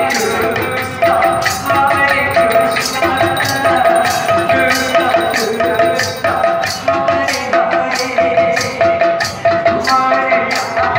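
Odia kirtan music: a barrel-shaped mridanga (khol) drum played by hand, with hand cymbals striking a steady beat and a short melodic phrase repeating over them.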